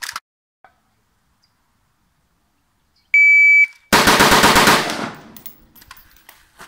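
A shot timer's half-second electronic beep about three seconds in, then a rapid string of 5.56 mm rifle shots from a semi-automatic Vektor LM4, fired as fast as the trigger allows for about a second, with an echo trailing off after the last shot.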